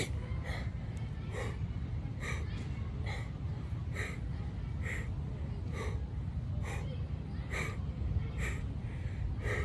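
A man breathing hard during exercise: short, forceful breaths, a little more than one a second and evenly spaced, over a steady low rumble.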